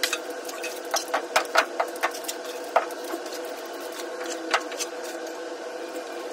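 Drywall knife scraping popcorn texture off a ceiling: a quick run of sharp clicks and scrapes from about a second in, with one more near the middle. Under it a steady motor hum runs throughout.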